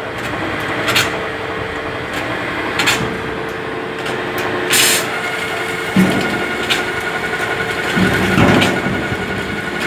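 Powder bag-filling machine running with a steady hum, with scattered clicks and knocks as a woven sack is fitted and clamped onto its filling spout. A short burst of hiss comes just before the fifth second.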